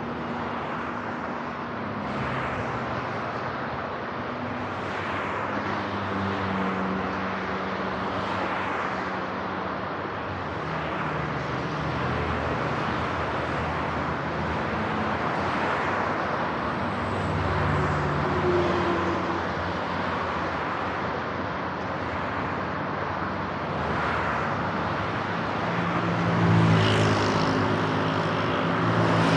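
Road traffic heard from a moving vehicle on a multi-lane road: steady road noise, with the engines of passing cars swelling and fading. The loudest vehicle passes near the end.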